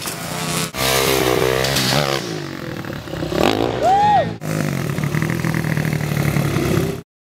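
Motocross bike's engine revving up and falling back in rising-and-falling sweeps, broken by two abrupt cuts; the sound stops suddenly about seven seconds in.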